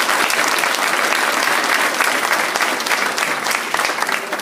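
An audience applauding, a dense patter of many hands clapping that begins to thin near the end.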